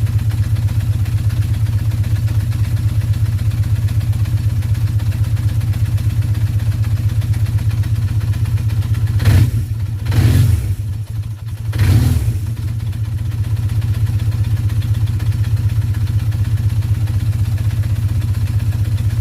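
Motorcycle engine idling steadily, revved briefly three times about halfway through.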